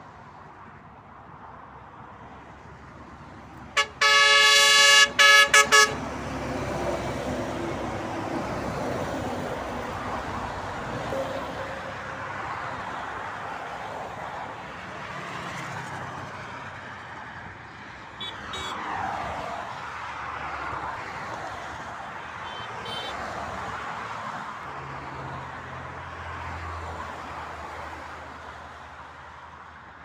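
Truck air horn blown about four seconds in: one long blast followed by a few quick short toots. Highway traffic runs on after it, with vehicles passing.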